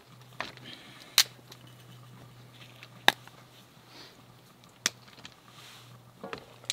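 Several sharp, separate clicks and knocks of a metal cooking pot's lid and an enamel camp mug being handled, the loudest about a second in and about three seconds in, with a quick cluster near the end. A faint low hum runs underneath.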